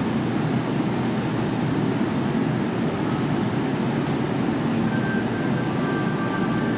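Hanshin 8000 series electric train standing at an underground station platform, with a steady low hum from its running equipment. Faint thin high tones come in about five seconds in.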